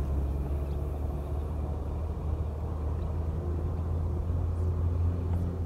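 Wind buffeting the microphone: a steady low rumble that drops away sharply at the very end.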